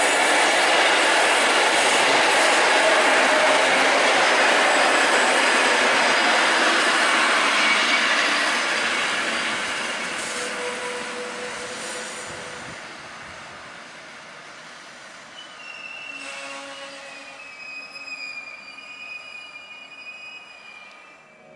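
Electric-hauled passenger train running past and receding: a loud, steady rolling of wheels on rail that fades away from about eight seconds in. In the last few seconds a high, wavering wheel squeal carries from the distant train.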